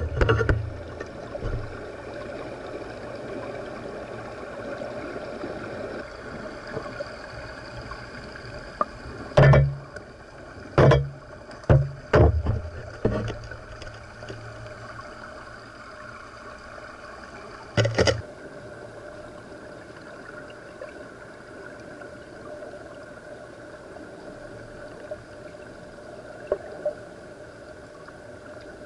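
Underwater sound picked up through a waterproof camera housing in a salmon pool: a steady murmur of water with a faint hum. Several loud, dull thumps come in a cluster from about nine to thirteen seconds in, and one more comes at about eighteen seconds.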